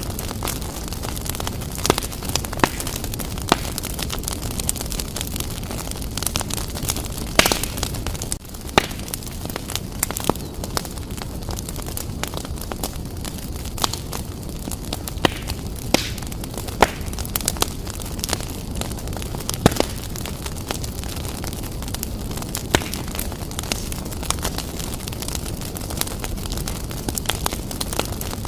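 Fireplace fire burning vigorously: a steady low rumble of flames with frequent, irregular sharp crackles and pops.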